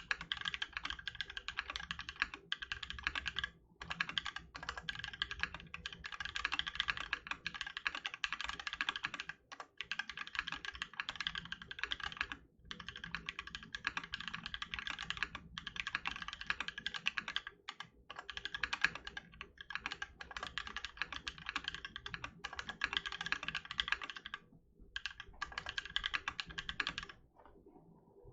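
Fast continuous typing on a 60% aluminum mechanical keyboard with lubed tactile YOK Holy Panda switches on a brass plate and PBT keycaps, in runs of rapid keystrokes broken by short pauses. The typing stops about a second before the end.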